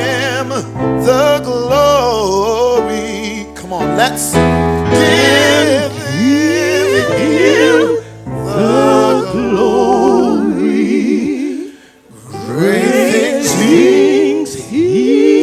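Live gospel singing with wavering vibrato and sliding vocal runs over low sustained instrumental notes. The accompaniment drops out about eleven seconds in and the voices carry on unaccompanied.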